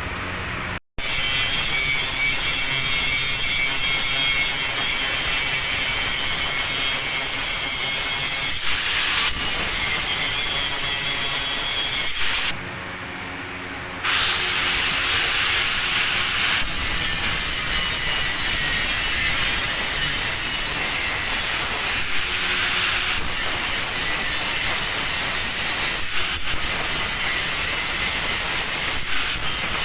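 Angle grinder grinding steel: a harsh grinding noise over a steady high whine. It drops off briefly about twelve seconds in, then the whine rises as the disc spins back up and the grinding resumes.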